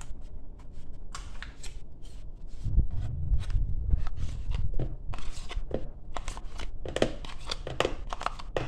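Plastic yogurt pouch crinkling and crackling in gloved hands as it is squeezed out into a plastic mixing bowl, with a few dull bumps around three seconds in.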